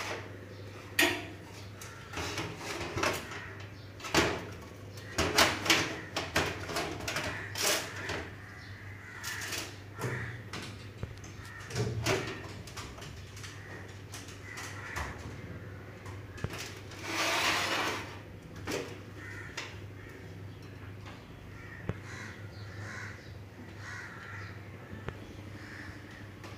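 A computer power supply unit being handled and seated into a steel desktop case: scattered metal knocks, clicks and scrapes, with a steady low hum underneath and a longer noisy scrape-like sound lasting about a second near the middle.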